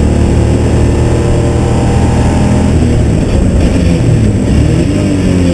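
A BMW E30 race car's engine running hard at steady high revs, then about three seconds in the revs drop and waver as the car slows for a corner, picking back up near the end.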